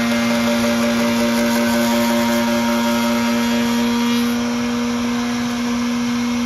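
Table-mounted router running steadily at a reduced speed with a large 1-1/2 inch round-over bit, a constant pitched whine, as a small wooden block is fed past the bit for a light second pass.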